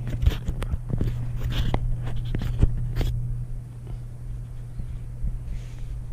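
Handling noise: a quick run of knocks, clicks and scrapes over the first three seconds, thinning out after that, over a steady low hum.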